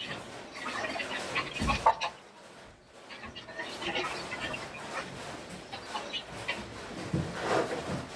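A chicken clucking on and off, with a soft low thump about two seconds in and another near the end.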